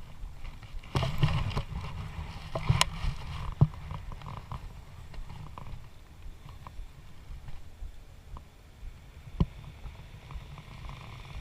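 Steady low rumble of wind on the microphone, stronger from about one to three seconds in, with a few sharp clicks and knocks scattered through it, the clearest near three seconds and nine and a half seconds in.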